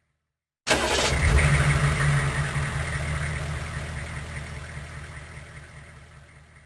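Big truck engine sound starting suddenly about a second in, running with a low rumble and a hissy top, then fading out slowly.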